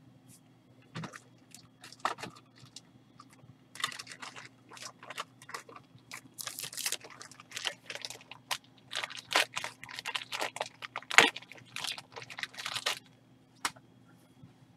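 Foil trading-card pack wrapper and cards crinkling and rustling in quick irregular crackles, densest in the second half with the loudest crackle about eleven seconds in.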